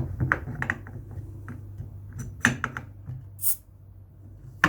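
Clinks and knocks of a beer being handled and opened, with a short hiss of gas escaping about three and a half seconds in.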